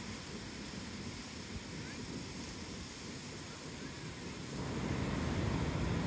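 Ocean surf breaking and washing up a sandy beach, a steady rush of noise that grows louder about three-quarters of the way through.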